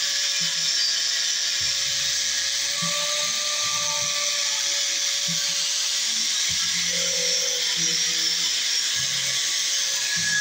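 Corded electric hand power tool running steadily with a continuous whine while working a stainless steel tube frame. Light knocks come through under the whine.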